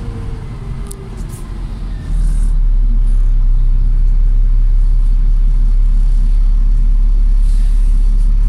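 Volvo B7TL bus's 7.3-litre diesel engine heard from inside the lower deck: a moderate rumble with a faint falling whine. About two seconds in it turns abruptly to a much louder, deep, steady rumble.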